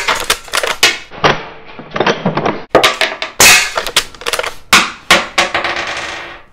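A quick series of sharp cracks and metallic clacks from a Umarex Legends Cowboy lever-action CO2 BB rifle being fired and its lever worked between shots.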